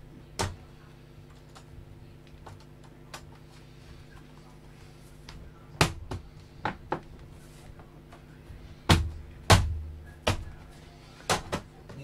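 Plastic back cover of an all-in-one computer being pressed and fitted into place by hand: scattered sharp clicks and knocks, most of them in the second half, over a steady low hum.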